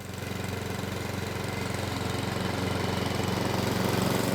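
Small petrol rotary lawnmower's 132cc four-stroke OHV engine running steadily, fading in at the start.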